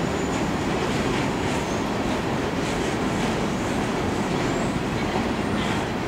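Empty open-top coal hopper cars of a freight train rolling past, a steady rumble of steel wheels on rail. Faint short high squeals come through now and then.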